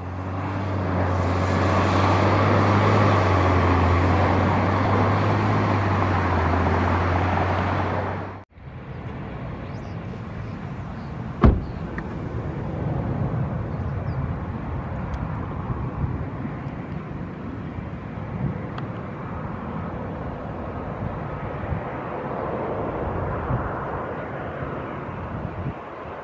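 Loud, steady jet engine noise from an airliner on approach, which cuts off suddenly about eight and a half seconds in. Then the four D-18T turbofans of an Antonov An-124 run more quietly and evenly as the freighter rolls on the runway, with a single sharp click about three seconds after the cut.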